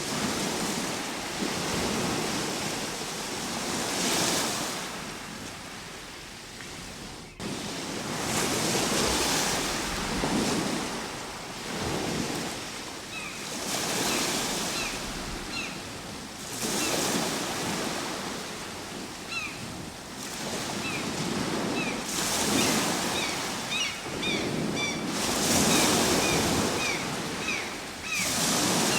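Ocean waves breaking and washing ashore, the surf swelling and falling back every few seconds. Short high chirps come in over the surf in the second half.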